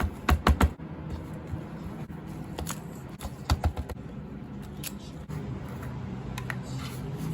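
Scissors cutting paper in short snips: a quick run of four near the start, then scattered snips through the rest.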